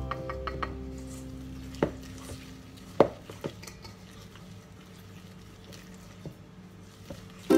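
Wire whisk stirring batter in a stainless steel bowl, with a few sharp clinks of the whisk against the bowl, the loudest about three seconds in.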